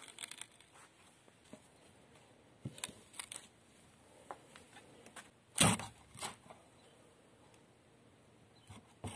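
Steel jaws of an old hand nail puller gripping a screw in a wooden block and levering it out: scattered light metal clicks and scrapes, with one louder sharp crack about halfway through and a smaller one just after.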